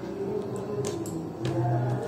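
Close-up chewing of a mouthful of soft khichuri eaten by hand, with wet mouth sounds and a few sharp smacking clicks about a second in, over background music.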